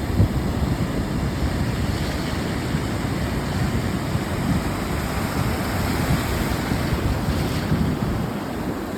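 Sea surf washing ashore: a steady rushing wash of waves with a heavy low rumble.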